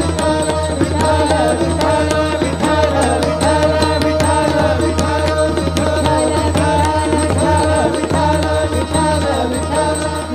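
Male classical vocalist singing a Marathi abhang with gliding, ornamented phrases, accompanied by tabla strokes over a steady held drone.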